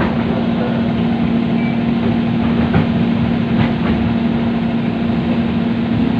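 Inside a KRL Commuter Line electric commuter train car: steady running noise with a constant hum, and a couple of faint clicks about three seconds in.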